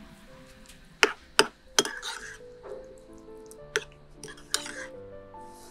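Metal spoon stirring a thick sauce in a ceramic bowl: sharp clinks of the spoon against the bowl about a second in, then softer scraping strokes, over background music.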